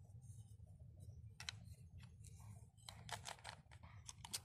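Faint, irregular plastic clicks and rattles as a small action camera is pushed into its plastic frame mount, with a cluster of clicks about three seconds in and another near the end.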